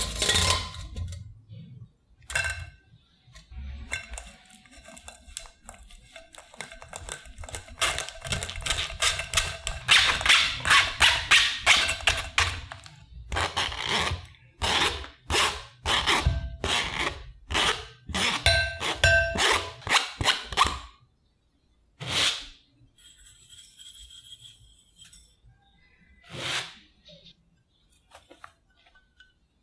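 A spoon scrapes and presses steamed sweet potato through a wire-mesh sieve: a run of quick scraping strokes with a metallic ringing, from about 8 to 21 seconds in. A single knock follows, then softer pouring sounds as sugar and tapioca starch go into the bowl.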